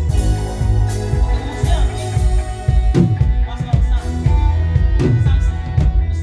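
Live praise band playing: drum kit with regular kick-drum hits and cymbal strikes over a steady bass line.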